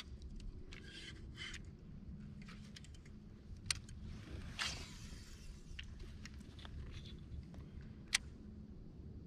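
Quiet handling noises: a few light clicks and taps, soft rustles, and a short swish about halfway through, over a low steady hum.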